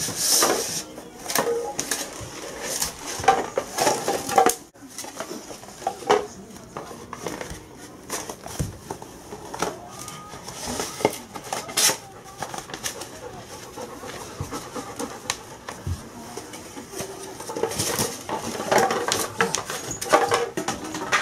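A plastic food tray rustling, scraping and clattering against a wooden floor as a toddler handles it, with sharp knocks scattered through it. A toddler's high babbling voice comes in near the start and again near the end.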